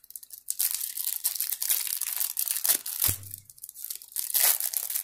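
A trading card pack wrapper being torn open and crinkled: a run of dense crackling and tearing, with a brief low thump about three seconds in.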